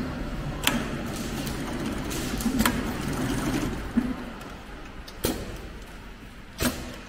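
Steady low machine hum with a few sharp clicks and taps as woven polypropylene bag fabric is handled and set under the presser foot of a heavy-duty big bag sewing machine, before it starts to stitch. The hum drops a little about halfway through.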